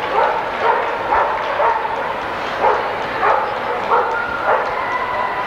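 A dog barking over and over in short, quick barks, about two a second with a brief pause midway, over the steady murmur of a crowded hall.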